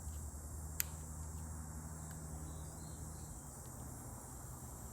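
Quiet handling of a small plastic weatherproof wiring connector and its seals, with faint ticks and one sharp click about a second in, over a steady low hum and a steady high-pitched insect-like drone.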